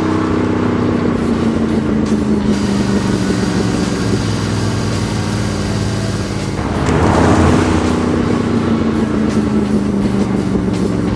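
A motor vehicle engine running steadily, with background music; a rushing swell of noise rises and fades about seven seconds in.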